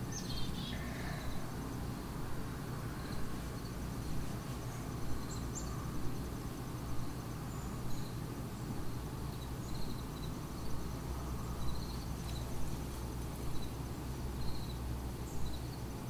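Outdoor ambience: a steady low hum with faint, short high chirps repeating about once a second.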